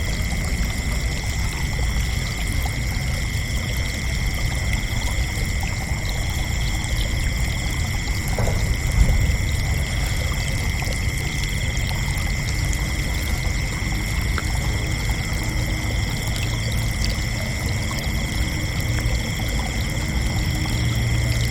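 Crickets chirping in a continuous chorus, a steady high trill, over a low rumbling background noise, with one brief soft knock about nine seconds in.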